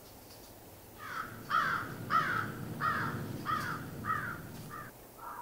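A crow cawing about seven times in a steady series, each call a harsh note that drops in pitch, roughly one every two-thirds of a second.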